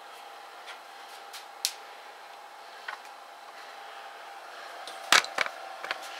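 Battery-powered fan of a Mr. Heater Big Buddy propane heater running with a steady hum before the heater is lit. A few light clicks, and a louder clatter of sharp knocks about five seconds in.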